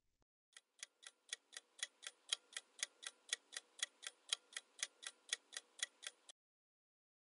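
Countdown-timer sound effect: a clock ticking evenly and faintly, about four ticks a second, starting about half a second in and stopping about a second before the end.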